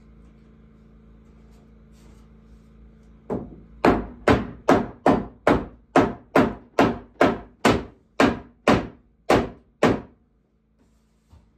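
Wooden mallet knocking a wooden ceiling board up into place: a run of about sixteen sharp blows, roughly three a second, starting about three seconds in and stopping shortly before the end.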